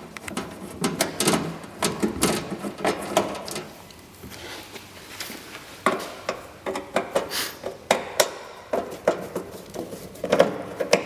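Screws being undone with a hand screwdriver from the base of a 5-in-1 mug press: irregular clicks and taps of the screwdriver working the screws.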